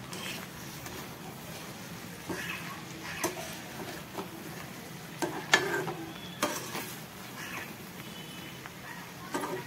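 Metal spatula stirring beetroot chunks in a metal kadai, with irregular scrapes and clinks against the pan over a low, steady sizzle.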